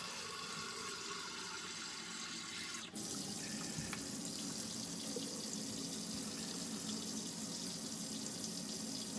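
Hot water running steadily from a camper faucet during a continuous draw from an Alde water heater, with a brief dip and change in its sound about three seconds in.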